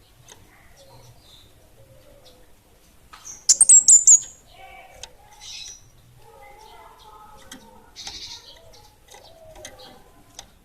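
Small songbird, a young bunga api, giving one loud, very high wavering trill about three and a half seconds in, with scattered short chirps and softer calls around it.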